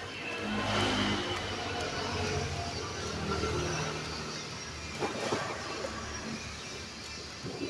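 Engine noise of a motor vehicle, swelling about a second in and then slowly fading, with a few light knocks later on.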